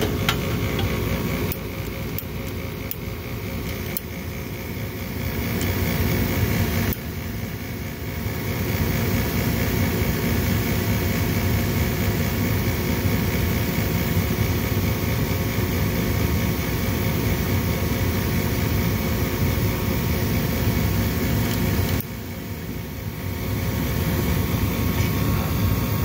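Bryant Plus 80 gas furnace's draft inducer fan running steadily with a hum, during the pre-purge before the gas valve opens; the hot-surface igniter is cracked, so nothing glows to light the burners.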